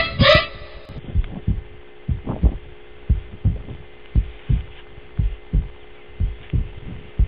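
Heartbeat sound effect: low thumps in pairs, about one beat a second, over a steady low hum. A higher rhythmic layer stops about a second in.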